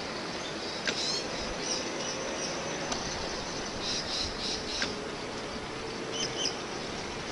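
Steady running noise of a 24-volt battery-electric 5-inch gauge model tramcar moving along the track, with a faint steady hum. Short high bird chirps come about a second in, in a quick run around four to five seconds, and twice near the end.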